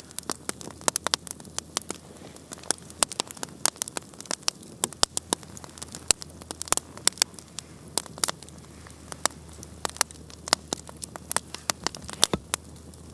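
Wood campfire crackling: burning logs give off frequent irregular sharp pops and snaps, several a second, over a steady low background.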